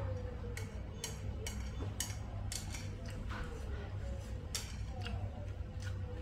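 Metal chopsticks clicking and tapping against a small bowl while noodles are eaten, with chewing: a string of short sharp clicks about every half second over a steady low hum.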